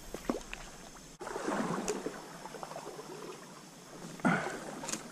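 Water splashing in a few short bursts over a steady stream: one a second in, another near the end.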